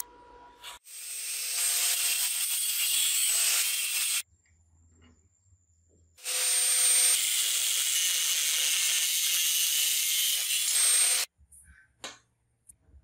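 Power grinder grinding the welded joints of a square steel tube smooth, in two steady runs of about three and five seconds with a pause between; the motor's pitch sags slightly near the end of each run. A few light metal taps follow as the tube is set down.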